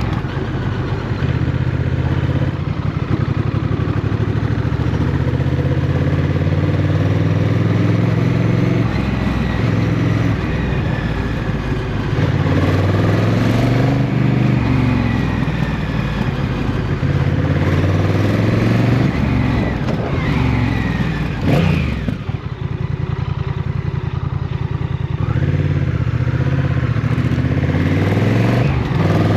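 Motorcycle engine running while riding at highway speed, its pitch rising and falling as the throttle and gears change. There is a brief drop in engine sound with a sharp click about three-quarters of the way through, and the revs climb again near the end.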